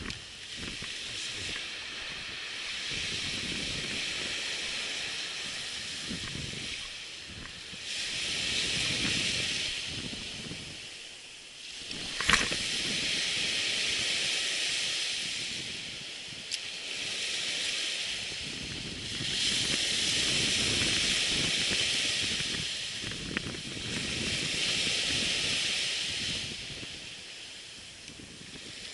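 Surf washing onto a sandy beach, its hiss swelling and fading every few seconds, with wind rumbling on the microphone. A single sharp click about twelve seconds in, and a fainter one a few seconds later.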